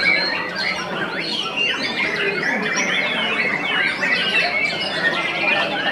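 Caged white-rumped shamas (murai batu) singing at once: a dense, unbroken tangle of overlapping whistles, trills and quick chattering notes.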